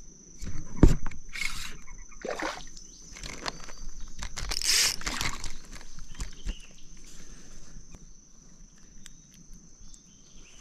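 Water splashing and a hollow knock against the kayak as a small redear sunfish, just caught, is handled and flops about. The knock comes about a second in, followed by several short splashes, the biggest near the middle.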